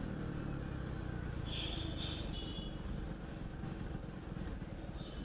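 Motorcycle engine running steadily under way, with road and wind noise, heard from the rider's seat. A few brief high-pitched chirps sound about one and a half to two and a half seconds in.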